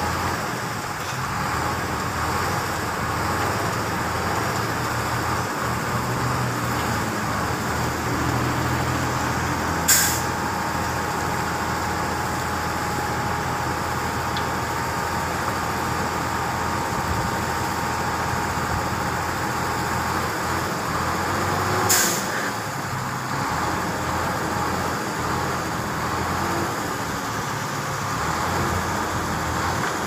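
Dump truck engine running steadily as its hydraulic hoist tips the loaded bed to dump soil, with a faint steady whine for several seconds midway. Two short, sharp hisses of released air, about twelve seconds apart.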